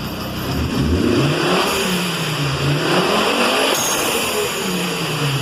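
Fiat Marea 2.0 20-valve turbocharged five-cylinder engine revved twice from idle, its pitch rising and falling back each time.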